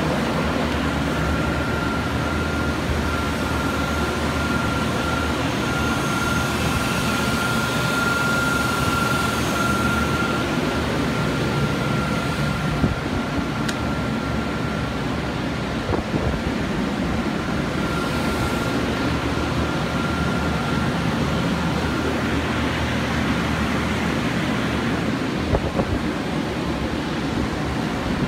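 Steady machine-like rushing noise with a low hum. A thin, steady high whine runs through it for the first two-thirds and then fades out.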